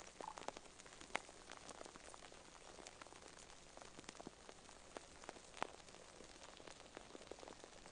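Faint, close-miked ASMR crackling: a dense run of small irregular clicks and crackles over a steady hiss, with a couple of sharper clicks about a second in and again past the middle.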